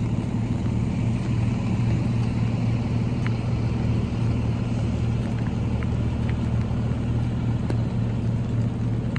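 Steady low rumble of an idling vehicle engine, holding an even pitch throughout.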